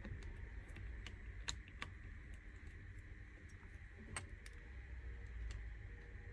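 Scattered light clicks and taps of a thin blade and fingers working at the edge of an iPhone 13 Pro Max's glass screen, prying it up from the frame; the loudest click comes about four seconds in.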